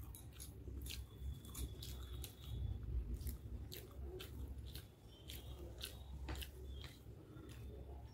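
A person chewing a mouthful of noodles close to the microphone: irregular wet mouth clicks and smacks, two or three a second, over a low steady hum.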